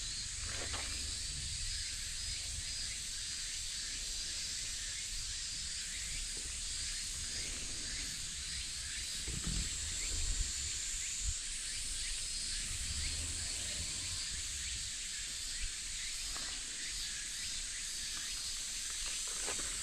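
Steady high, hissing chorus of summer cicadas, with a low rumble beneath and a few scattered soft knocks.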